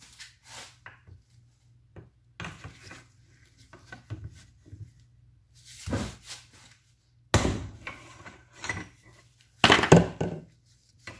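Tools knocking and clanking on an old self-levelling suspension accumulator held in a vise while its rusted hose nut is worked loose. It is a string of separate knocks with short gaps between them, and the loudest come in the second half.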